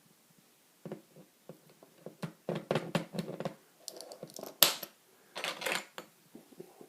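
Small clicks, taps and scrapes of tools and tiny parts being handled while a euro cylinder lock is taken apart for its grub screws and pin springs, with one sharp click about four and a half seconds in and a scratchy scrape just after.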